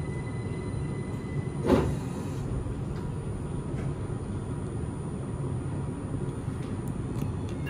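Steady running hum of a Linimo 100 series low-speed maglev train heard from inside the front of the car, with a faint steady high whine and one short knock a little under two seconds in.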